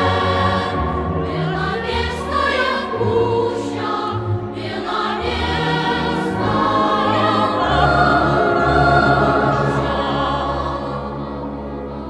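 Music with a choir singing, the voices wavering with vibrato over sustained low notes.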